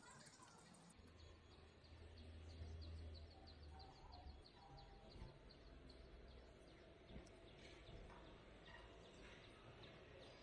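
Near silence: the faint outdoor ambience of an empty city street, with a low rumble for a few seconds near the start and faint bird chirps.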